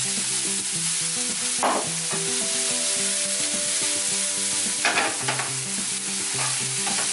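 Chopped onions frying in hot oil in a non-stick frying pan, a steady sizzle, as the pan is shaken and stirred, with louder scrapes about two and five seconds in. Soft background music with held notes plays underneath.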